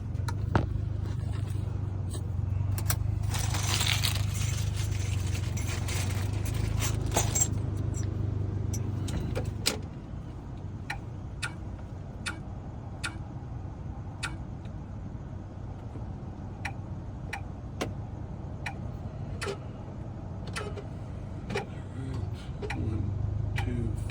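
Key-cutting machine running with a steady hum while it cuts a Ford key blade, with a louder grinding from about 3 to 7.5 seconds in. After about ten seconds the hum drops and sharp clicks come at a regular pace, roughly one a second.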